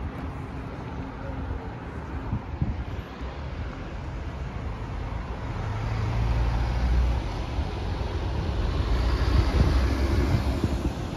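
Articulated city bus driving past, its engine sound building from about halfway through and loudest near the end, over steady road traffic.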